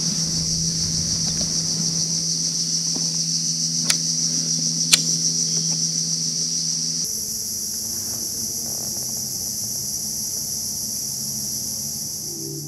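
Steady, high-pitched drone of an insect chorus, with two sharp clicks about four and five seconds in; about halfway through, the drone changes pitch abruptly.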